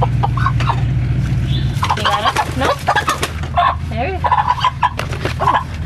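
Chickens clucking and squawking while going up onto a wooden roosting ladder for the night, many short calls overlapping. A steady low hum runs underneath and lessens about two seconds in.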